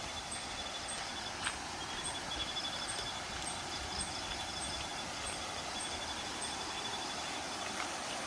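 Forest ambience: a steady insect-like trill and a short high chirp repeated about twice a second over a steady background hiss, with a few faint clicks.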